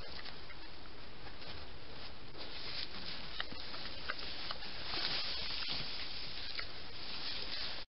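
Wild boar rooting and rustling in brush right beside a trail camera: scattered soft clicks and scrapes over the camera's steady hiss, cutting off abruptly near the end.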